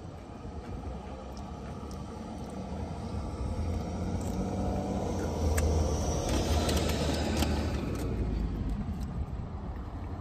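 A passing road vehicle heard from inside a parked car: a low rumble that swells to its loudest about six to eight seconds in, then eases off.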